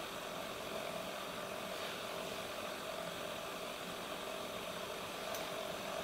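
Steady low background hiss with a faint hum; no distinct event.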